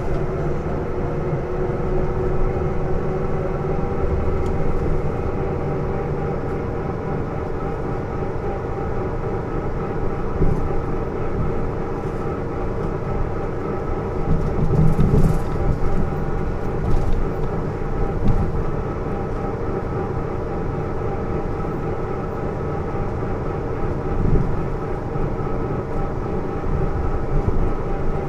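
Isuzu PJ-LV234L1 bus running, with a steady whine from the drivetrain that is louder than the engine. The uploader takes this abnormal noise, not sure, to come from the drive train.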